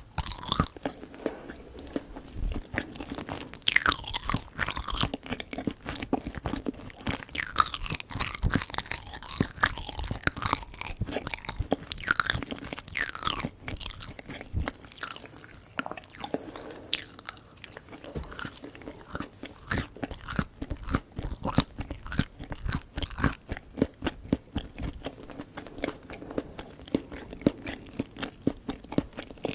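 Close-miked chewing and biting of sweets, a dense, irregular run of crunchy clicks and wet, sticky mouth sounds.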